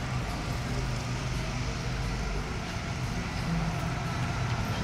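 Steady road traffic noise: a low engine hum under an even wash of noise, with no single event standing out.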